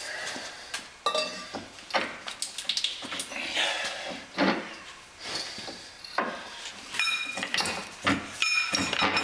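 Steel hammer and pry bar clanking on a tractor's front hub and steering knuckle as they are knocked and pried loose: a string of irregular metallic knocks, a couple of them ringing briefly near the end.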